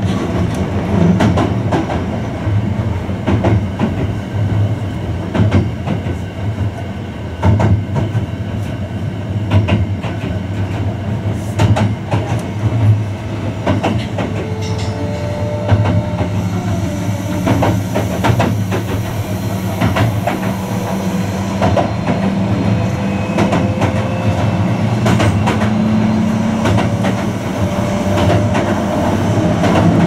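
Cab-less interior running sound of a Hankyu 1000 series EMU, with PMSM traction motors, under way. There is a steady rumble of wheels on rail, with irregular clicks and clatter as the bogies cross rail joints. Faint thin gliding tones come now and then, and a soft hiss lasts a few seconds midway.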